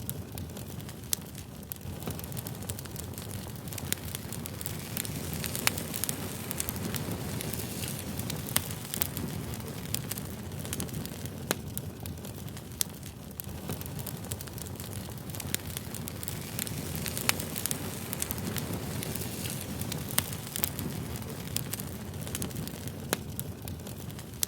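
Campfire burning: a steady low rush of flames with frequent sharp crackles and pops scattered irregularly throughout.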